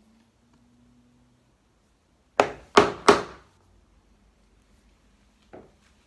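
Three quick hammer blows on the end of a large slotted screwdriver seated in a painted-over hinge screw, struck to loosen the screw, followed by a lighter knock near the end.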